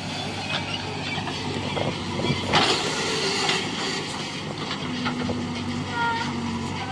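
Heavy diesel machinery running steadily, with rattling and clanking and a louder noisy surge about two and a half seconds in.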